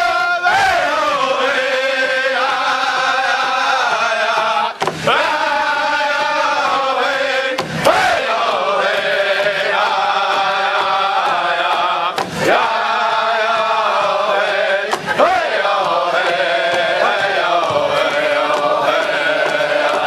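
Chanting voices holding long, wavering notes that mostly slide downward, breaking off briefly every few seconds.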